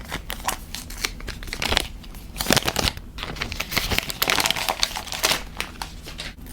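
Thin plastic protective film being peeled off a new Xiaomi 12S Ultra phone, crinkling and crackling in irregular bursts. It is busiest about two and a half seconds in and again from about four to five seconds in.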